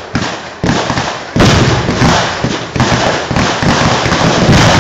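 Kerala temple-festival fireworks barrage (poovedi): firecrackers and heavy bangs going off in rapid, overlapping succession, with sudden jumps in loudness and an almost unbroken crackle from about a second and a half in.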